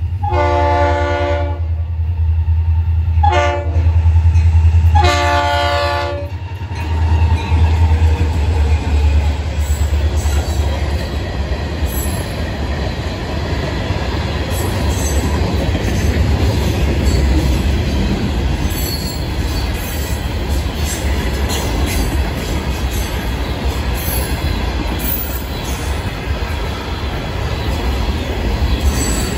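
Freight train horn at a grade crossing: a long blast, a short one and another long one, over the low rumble of the passing diesel locomotives. From about seven seconds in, the freight cars, tank cars and boxcars, roll past with a steady loud wheel-and-rail noise and a few brief high wheel squeals.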